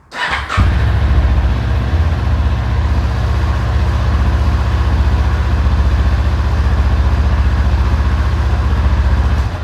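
Motorcycle engine running steadily at idle, a low, even, pulsing note that starts about half a second in and cuts off suddenly near the end.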